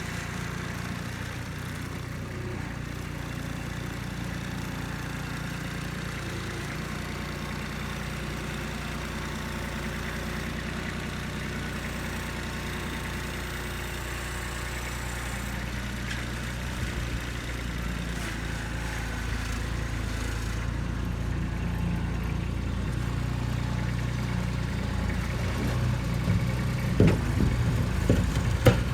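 Kubota B2630 compact tractor's three-cylinder diesel engine running steadily, growing louder through the second half. A few short knocks come near the end.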